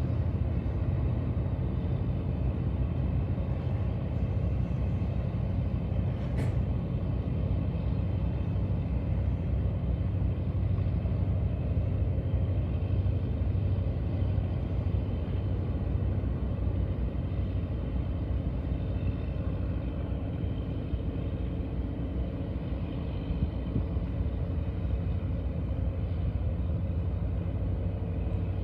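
Steady low engine rumble with a constant hum, unchanging throughout.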